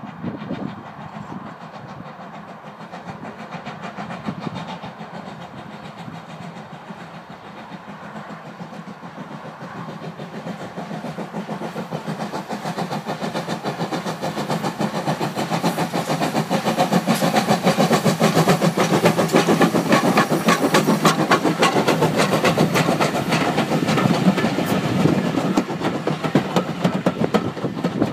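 Peckett saddle-tank steam locomotive Ashington No.5 working hard up a 1 in 48 gradient with a train of coaches. Its rapid, regular exhaust beats grow steadily louder as it approaches and passes close by, and the carriages roll past near the end.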